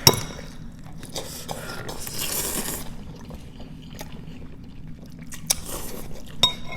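Close-up mukbang eating of spicy instant noodles: chewing, a short hiss about two seconds in, and a few light clicks of a utensil on the dish.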